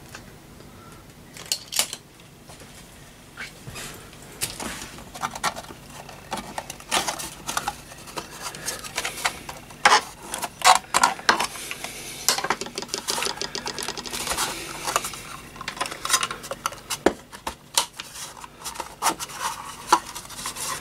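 A Heathkit GD-1B dip meter's sheet-metal case and front panel being handled and pried apart by hand: irregular clicks, scrapes and metallic rattles as the seal around the front is worked loose, busiest in the middle.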